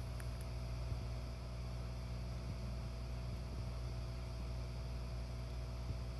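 Insta-Bed NeverFlat secondary air pump running with a steady low hum as it keeps the air mattress topped up.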